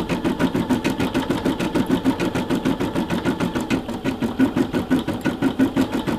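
Brother SE600 embroidery machine stitching out a design, its needle working in a rapid, even rhythm of stitches.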